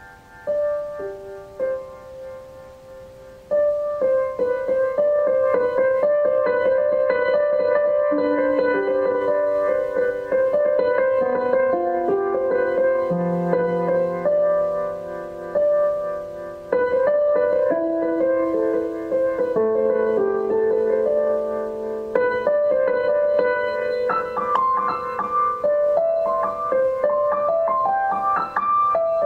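Slow keyboard music with a piano sound: a melody over long held notes, soft for the first few seconds and then fuller.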